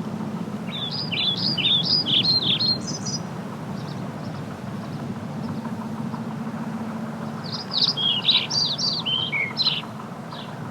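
A songbird chirping in two quick, varied phrases of a couple of seconds each, over a steady low rumble.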